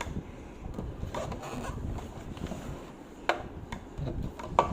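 Handling noise from the unboxed wooden cuckoo clock and its packaging: rubbing and shuffling with a few sharp clicks and knocks, the loudest near the end.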